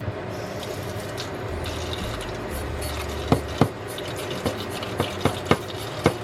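Tap water running steadily into a sink. Several sharp knocks sound in the second half, likely the pork leg or a knife striking the sink while it is cleaned.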